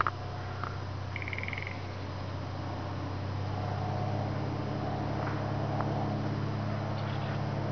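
Single-engine light aircraft droning overhead: a steady low engine-and-propeller hum that grows louder from about three seconds in. A short, rapid bird trill sounds about a second in.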